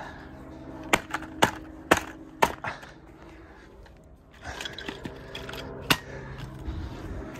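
Sharp clacks and knocks of the smashed 2013 Mac Pro's hard metal and plastic parts on stone paving: a quick run of about six in the first three seconds, then rough scraping and handling noise from about four and a half seconds in, with one more sharp clack near six seconds.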